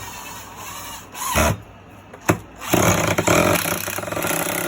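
Cordless impact driver driving a screw into wood, hammering rapidly for about two seconds in the second half after a couple of knocks; the screw ends up stripped.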